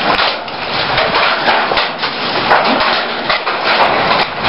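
Large hailstones pelting down in a dense, continuous clatter of many separate impacts.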